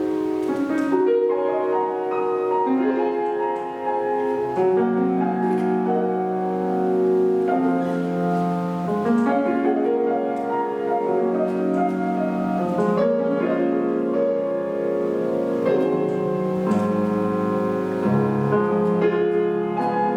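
Solo piano playing a classical piece, with sustained, overlapping notes and chords that shift every second or so.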